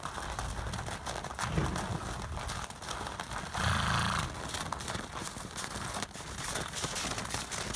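Horses' hooves crunching and shuffling on frozen, snowy ground as a herd mills about, a steady crackly rustle with a louder burst about four seconds in.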